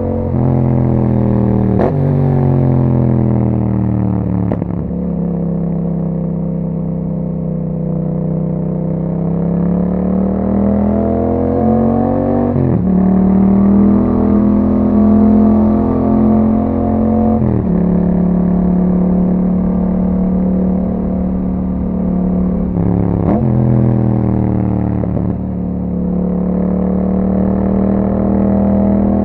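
2021 Yamaha MT-07's parallel-twin engine running through an Akrapovic exhaust while riding: the engine note falls and rises with the throttle, with several sudden steps in pitch at gear changes.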